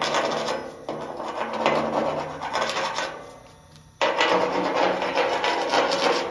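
Rapid chipping and scraping of welding slag off steel C-channel weld beads with a pointed chipping hammer. It comes in fast bursts that start sharply and then fade, one about a second in and another at about four seconds.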